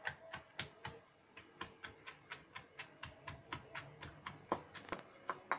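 Stone pestle pounding onions and garlic in a stone mortar: quick, even knocks, about four a second, grinding them into a spice paste.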